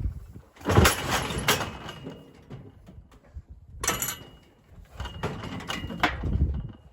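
Steel livestock gates and chute clanging and rattling as heifers are worked, with loud knocks about a second in, near four seconds and again near six.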